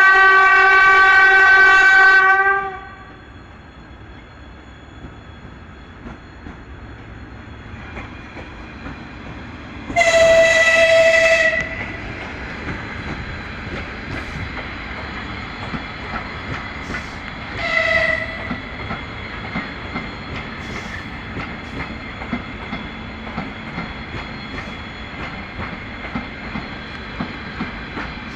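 ES2G Lastochka electric train sounding its signals in greeting. A loud low horn (typhon) blast lasts about two seconds at the start, a higher-pitched whistle follows about ten seconds in, and a short whistle toot comes near 18 seconds. Between and after them the train runs nearer, its wheels clicking over the rail joints and growing louder.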